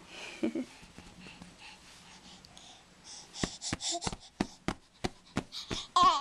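A baby slapping her hand on a couch cushion, a run of sharp slaps about three a second from about halfway, with quick breathy gasps between them. A baby's voice starts near the end.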